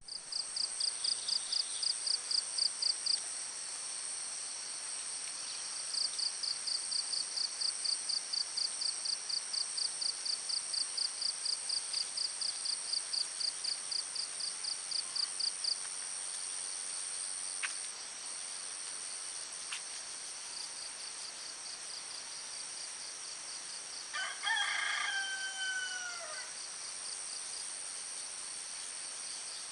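Crickets and other insects shrilling steadily, with a rhythmic chirp of about four pulses a second that stops and starts. A rooster crows once about 24 seconds in.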